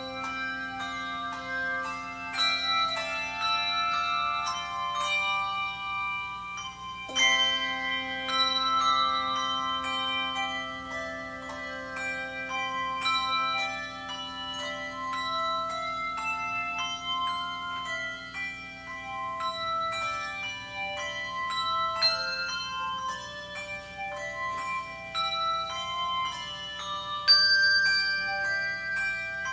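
Handbell choir playing a piece: many bells struck in turn and together, each note ringing on and overlapping the next.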